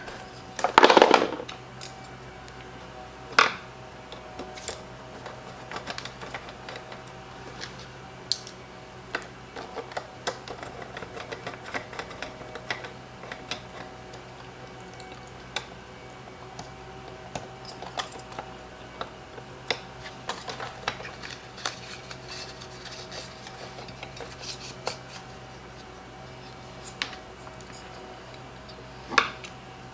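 Scattered light clicks, taps and metallic clinks of hand tools and small parts being handled while a leaf blower is taken apart, with a louder clatter about a second in.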